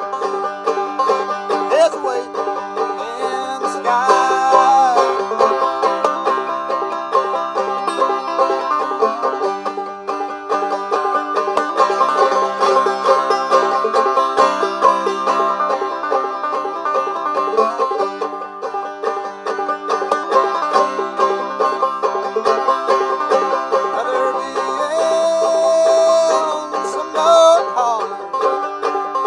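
Banjo played clawhammer style: a steady, driving run of plucked notes and brushed strums in an old-time rhythm. Two long held notes sound over it, one about four seconds in and one near the end.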